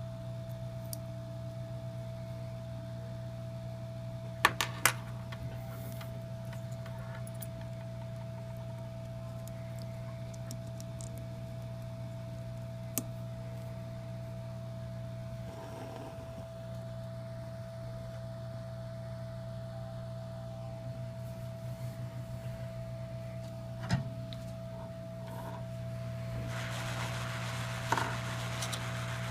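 A steady low electrical hum with a thin steady tone above it, broken by a few sharp clicks and taps: a quick pair about four and a half seconds in, then single ones scattered later.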